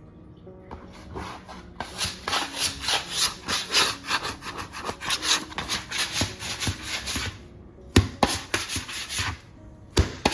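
Fast, rhythmic rubbing strokes on a wooden surface, about three or four a second, typical of dough being worked on a wooden board. Near the end the strokes pause for two sharp knocks, then start again.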